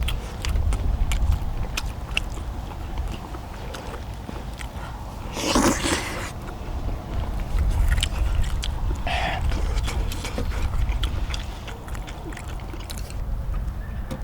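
People chewing and eating cheese dak-galbi, with many small sharp clicks of eating and utensils over a steady low rumble. A louder, noisy rush comes about five and a half seconds in.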